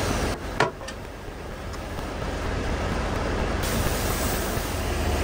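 Steady rushing workshop noise over a low hum, with a single sharp knock about half a second in.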